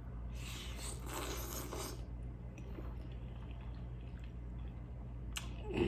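Chewing and mouth sounds of a person eating close to the microphone, with scattered small clicks, over a steady low hum.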